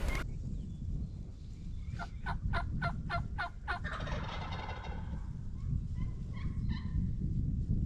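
Wild turkey gobbling: a quick rattling run of notes about two seconds in, then more gobbling near the end, over a steady low wind rumble on the microphone.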